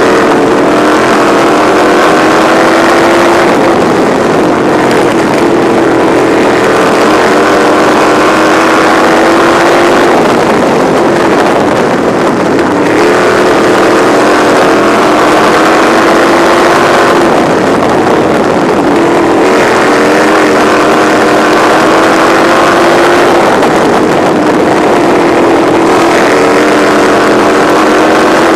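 Engine of a winged Midwest Lights mini sprint car at racing speed, heard from the cockpit. The note repeatedly climbs over a few seconds down each straightaway, then drops sharply as the driver lifts for the turn.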